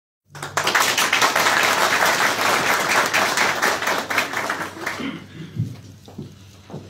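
Audience applauding, dying away about five seconds in, followed by a few soft low thumps.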